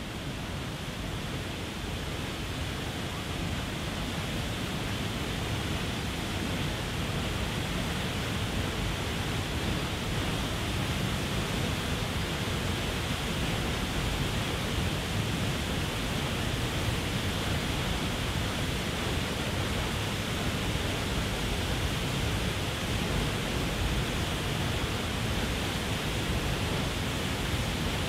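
Waterfall pouring over a stone ledge into the pool below: a steady rushing of water, rising slightly over the first few seconds and then holding even.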